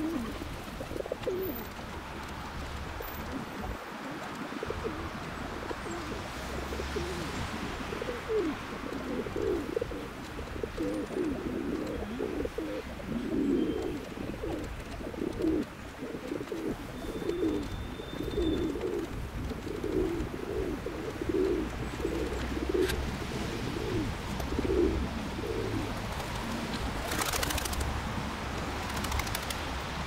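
Feral rock pigeons cooing: many overlapping low, rolling coos, coming thick and fast through most of the stretch, over a steady background hiss. A brief rush of noise comes near the end.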